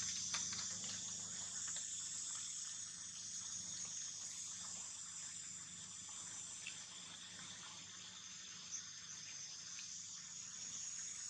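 Insects in the forest buzzing steadily, a high even drone, with a faint low hum beneath and a few faint ticks.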